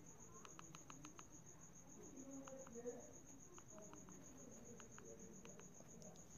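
Near silence: faint, short clicks of the Jio Phone's keypad buttons being pressed one after another, over a steady, faint, high-pitched pulsing trill.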